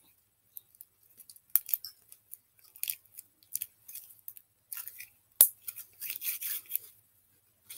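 Slime being worked by hand: scattered sticky clicks and crackles, with two sharper snaps and a denser run of crackling about six seconds in.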